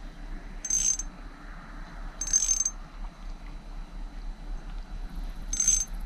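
Small spinning fishing reel turned in three short bursts, a whirring mechanical ratchet-like sound each time, as line is taken in while working a light metal jig for horse mackerel. A steady low background of wind and water lies beneath.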